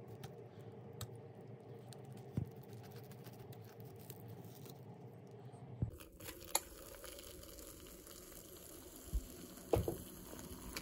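Quiet kitchen handling sounds: a few short soft taps and clicks at irregular moments over a low background hum, the clearest near the end.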